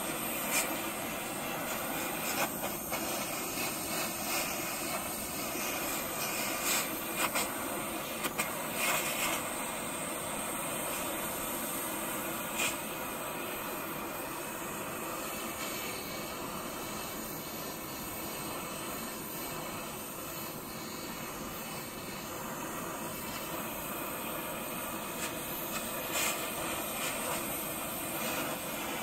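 Hand-held gas torch burning steadily as its flame is played around a brass pump bearing housing to heat it, with a few short clicks.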